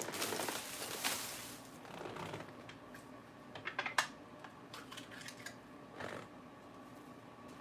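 Crinkling rustle from handling food packaging as crushed croutons are added to lettuce. Sharp light clicks follow around three to four seconds in, the loudest near four seconds, and again near six seconds.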